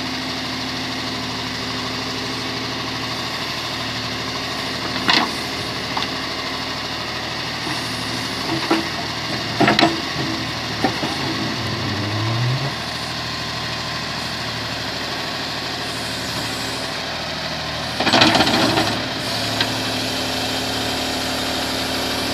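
John Deere 5310 tractor's diesel engine running steadily, with several sharp clanks, a short rising whine about halfway through, and a louder burst of clanking near the end.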